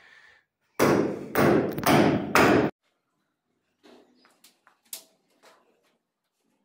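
A loud burst of noise in four pulses lasting about two seconds, cutting off abruptly, then faint light clicks and taps of metal ceiling-grid angles being handled and fitted into place overhead.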